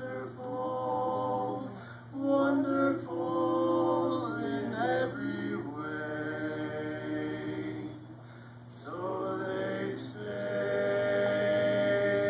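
Male vocal quartet singing a cappella, holding chords that change every second or two, with a short break about eight seconds in and a long sustained chord from about ten seconds on.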